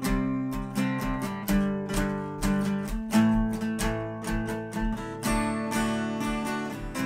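Background music: strummed acoustic guitar chords at a steady rhythm.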